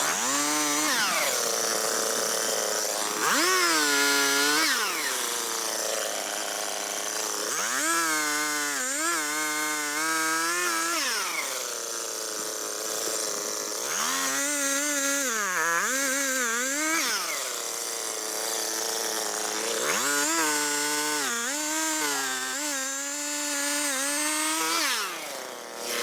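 Stihl two-stroke chainsaw revving up and falling back to idle about five times in a row, as it does when cutting brush and small trees out of a ditch. The engine pitch sags briefly during some of the revs as the chain loads in the cut.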